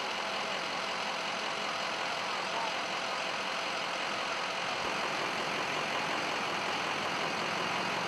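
Steady idling of a large truck engine, a fire engine standing at the scene.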